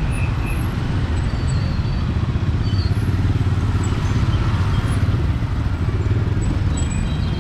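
Steady city street traffic noise: a low, even hum of passing cars and motorbikes.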